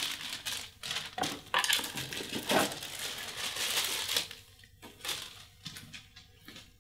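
Clear plastic bag crinkling and rustling as the wind sensor unit is pulled out of it, with light knocks of hard plastic parts. After about four seconds the crinkling thins to a few scattered clicks.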